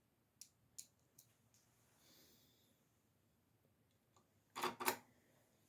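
A few light clicks from small parts being handled during hands-on work on a mower's starter, then a louder short double clatter near the end.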